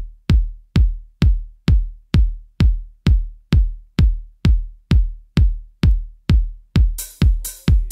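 Electronic dance music: a steady drum-machine kick beat at a little over two beats a second, with hi-hats and a synth line coming in near the end.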